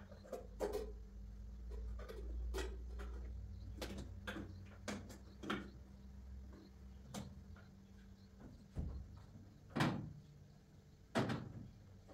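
Kitchen clatter: a dozen or so irregular knocks and clicks as dishes, utensils and cupboard doors are handled, with the two loudest knocks near the end. A low hum runs under the first half and then stops.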